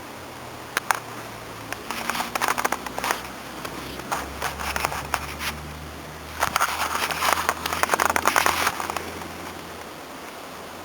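A cat playing with a toy ball, making rapid clicking and rattling sounds in two bursts: one about two seconds in and a longer one from about six and a half to nine seconds.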